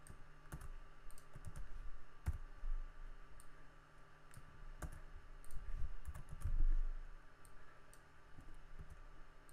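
Typing on a computer keyboard: irregular, scattered keystrokes, over a faint steady hum.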